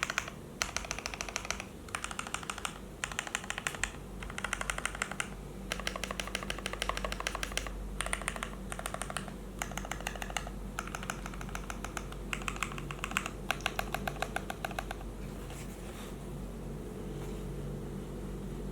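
Typing on a KBD75 mechanical keyboard with a stacked acrylic case, acrylic plate, foam, and lubed, filmed Cherry MX Black Hyperglide linear switches: bursts of rapid keystrokes separated by short pauses. The typing stops about three-quarters of the way through, leaving a low steady hum.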